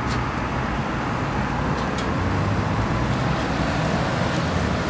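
Steady road traffic noise: a low vehicle rumble with a hiss of tyres, holding level throughout.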